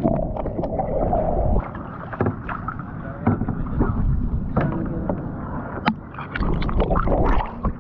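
A plastic sit-on-top kayak being paddled: irregular paddle splashes and knocks, over a constant low rumble of handling noise on the action camera's microphone.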